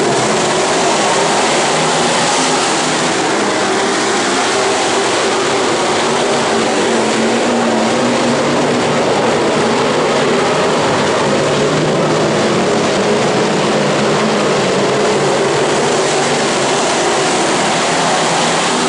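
Several dirt-track stock cars racing on a dirt oval, their engines at full throttle in a loud, steady din.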